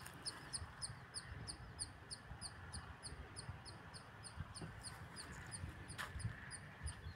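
A small animal chirping a short, high, falling note over and over, about three or four times a second, over a low rumble.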